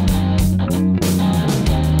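Background music with guitar, playing at a steady loud level.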